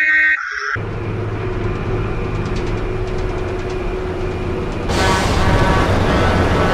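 A high, wavering wail cuts off abruptly under a second in. A steady car-engine rumble follows, dubbed in for a toy Ecto-1 driving, and it grows louder and brighter about five seconds in.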